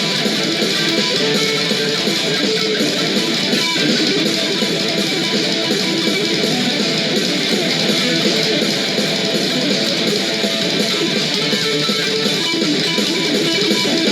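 Heavy metal music with distorted electric guitar playing steadily and densely, with little bass.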